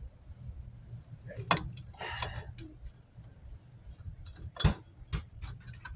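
A few sharp metallic clicks and clinks of drum brake hardware and tools being handled, the loudest about three quarters of the way through, over a steady low hum.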